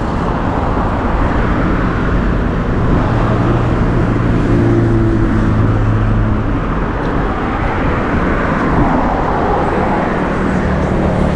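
Road traffic passing close by: a steady rush of tyres and engines, with a heavier vehicle's engine hum swelling about three seconds in and fading a few seconds later.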